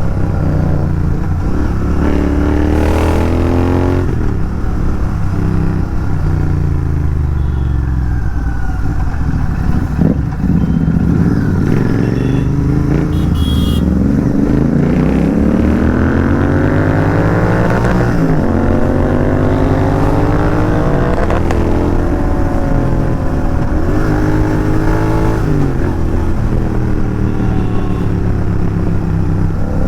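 Royal Enfield 650 parallel-twin motorcycle engine with an aftermarket exhaust, being ridden hard. Its pitch rises with throttle and drops at each gear change, over and over.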